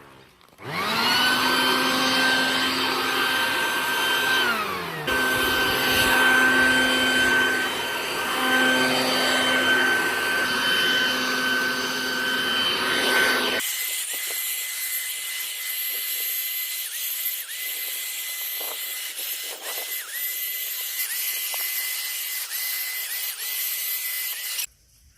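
An electric power saw cutting up branches of a fallen tree: the motor spins up to a steady high whine, winds down about four seconds in, then starts again and keeps running. About halfway through the sound turns thinner and higher, and it cuts off abruptly near the end.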